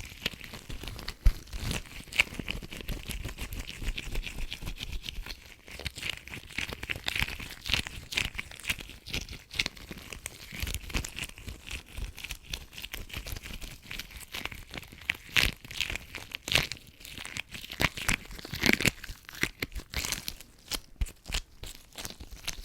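Latex gloves rubbing and stretching on the hands, close to the microphone: a dense, irregular crinkling crackle.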